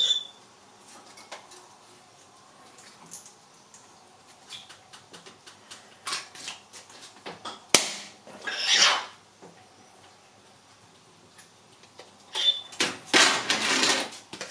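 Thin-walled 3D-printed PLA wing sections, joined with CA glue, being snapped and broken apart by hand in a destructive test: scattered small crackles, one sharp crack about eight seconds in followed by a short crackling, and a longer crackling burst near the end.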